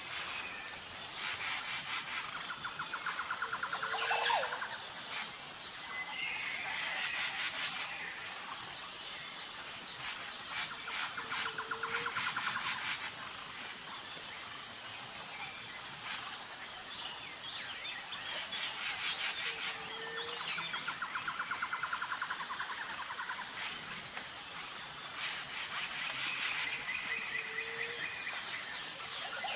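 Tropical forest ambience: a steady, high, pulsing insect drone under a chorus of bird calls and trills. A short low call and a burst of chirping recur together about every eight seconds, four times over.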